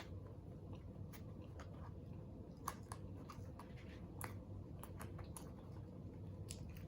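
Close-up chewing and eating sounds: scattered, irregular wet mouth clicks and small crunches as fries are eaten, over a steady low hum.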